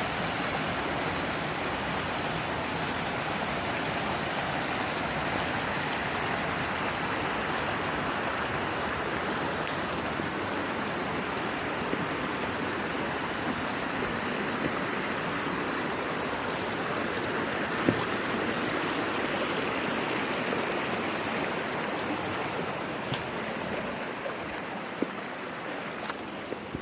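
Mountain stream flowing steadily with a constant rushing sound, and a few faint knocks. The rushing eases slightly over the last few seconds.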